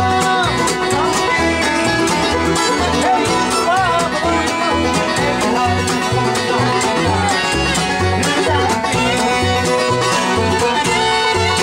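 Bluegrass string band playing an instrumental passage, the fiddle carrying a sliding melody over a steady beat of upright-bass notes and plucked strings.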